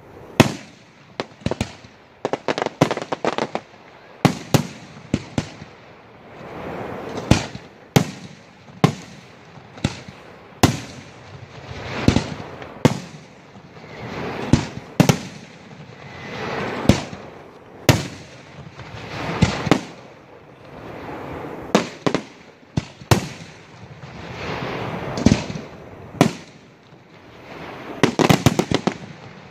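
Aerial fireworks display: a steady run of sharp bangs from shells bursting overhead, about one or two a second, each with a swell of noise around it. A quick volley of bangs comes near the end.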